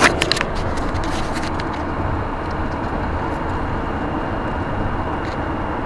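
Steady road and engine noise inside a van's cab at motorway speed, with a few light clicks in the first half second.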